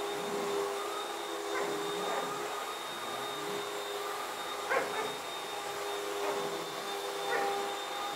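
Hoover upright vacuum cleaner running with a steady whine, while a border collie playing at it with a ball gives three short barks.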